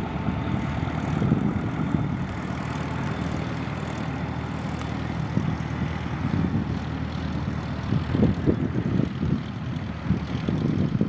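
Aircraft engine noise, a steady rumble without a clear pitch, with wind gusting on the microphone near the end.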